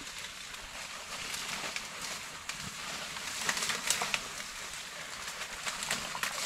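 Steady rustling of dry field vegetation with scattered crackles and snaps, busiest about three to four seconds in.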